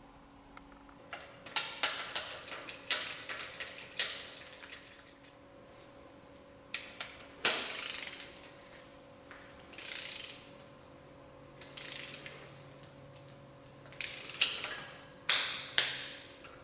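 Socket ratchet clicking as new spark plugs are run into a Mitsubishi 4G63 cylinder head. A long run of fast clicks comes first, then a series of short separate click runs.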